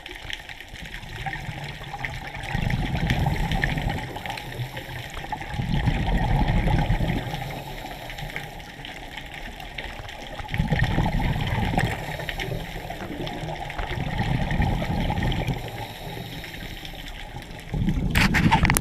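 Water heard underwater through a camera: a steady faint hiss with a low rushing surge that swells up about every four seconds.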